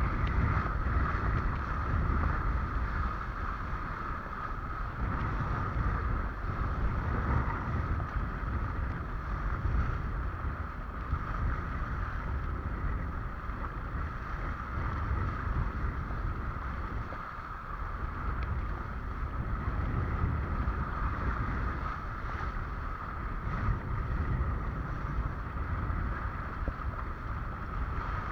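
Wind rumbling on the microphone over water rushing past a windsurf board under sail, with a steady high hum running under it.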